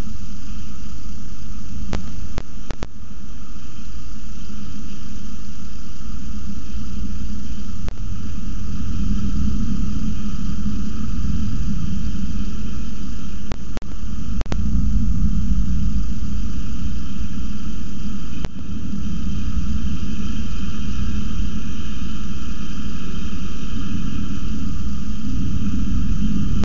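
Thunderstorm noise on the nest-box microphone: a loud, steady rumble of wind and rain with a hiss above it. A few sharp clicks, each with a brief drop in level, come about two seconds in, near the middle, and about two-thirds of the way through.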